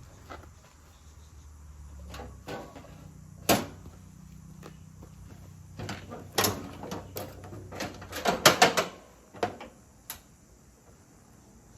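A series of sharp knocks and clatters, the loudest cluster about eight to nine seconds in, over a faint low hum that dies away about nine seconds in.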